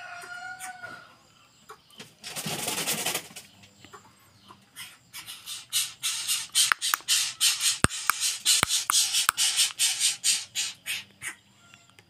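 Young greater coucal (Centropus sinensis) begging for food: one long harsh rasp a couple of seconds in, then a rapid run of short, raspy calls, several a second, for about six seconds.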